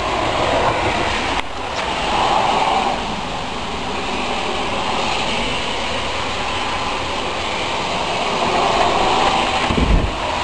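Steady rushing outdoor noise, with a low thump near the end.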